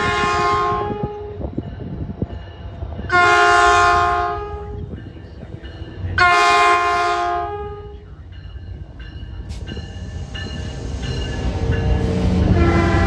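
Train horn sounding a series of long blasts: one ends about a second in, two more come about three and six seconds in, and a fourth swells up near the end. Under the last one the rumble of the train grows louder as it approaches.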